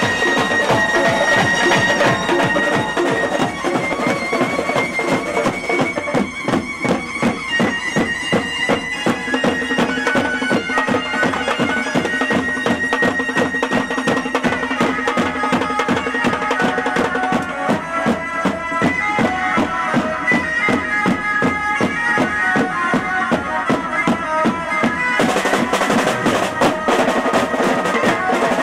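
Instrumental Indian folk-style music: a reedy, bagpipe-like lead melody of held notes over a fast, steady drum beat, growing fuller near the end.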